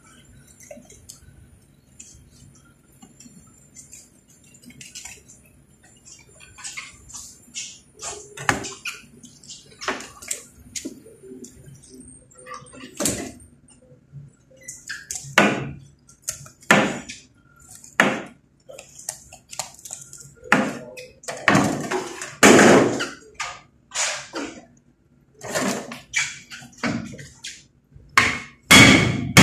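Knife cutting and scraping through a large grouper on a plastic cutting board. From about halfway come heavy knocks, roughly one a second, as a plastic mallet drives a big knife down through the fish onto the board.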